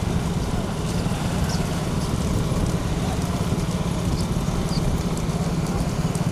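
A vehicle engine running with a fast, even throb, and the clatter of hooves from racing bullocks.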